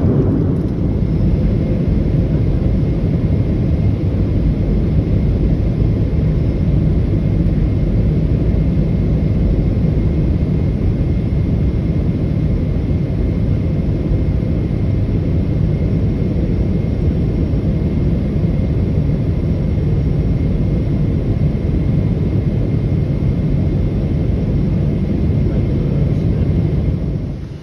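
Cabin noise of a Boeing 777-300ER in flight: a steady low rumble of engines and rushing air, with a faint thin tone held above it. It cuts off near the end.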